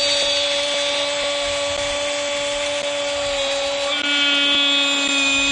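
A Spanish-language football commentator's drawn-out shout of "gol", held on one steady pitch, its vowel brightening about four seconds in.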